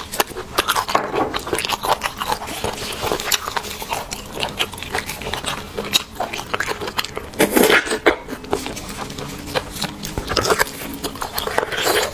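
Eating sounds of someone biting and chewing cooked beef bone marrow: many short, wet clicks and smacks, with a louder cluster about seven and a half seconds in.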